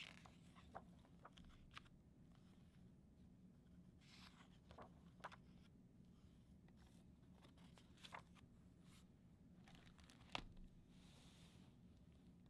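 Faint rustles and swishes of a hardcover picture book's paper pages being turned by hand, with scattered soft taps and a sharper knock near the end as the book is closed.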